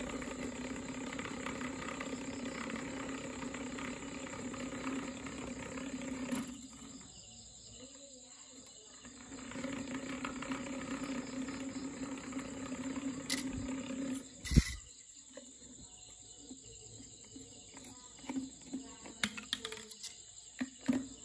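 Small DC motor spinning a propeller cut from a plastic bottle, a steady whirring hum. It drops out for a few seconds about six seconds in, comes back, then stops with a sharp knock about fourteen seconds in. A few light plastic clicks near the end come from the propeller and cap being handled.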